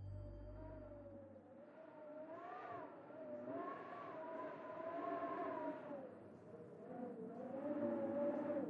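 A long, wavering wail: a single pitch sliding slowly up and down without a break, swelling louder near the end.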